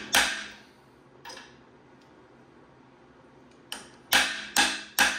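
Hammer blows on a seized Triumph TR4 cast-iron cylinder head, struck to break the rust holding it on its studs: one sharp strike right at the start, a lighter one about a second in, then a quick run of three strikes about half a second apart near the end, each with a short metallic ring.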